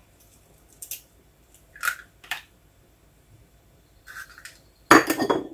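Hen's eggs being cracked: a few sharp taps and cracks of eggshell, the loudest cluster near the end.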